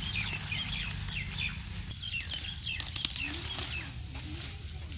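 Turnip leaves rustling as turnips are pulled up by hand, with a couple of sharper snaps about two and three seconds in. Small birds chirp in short runs in the background over a steady low rumble.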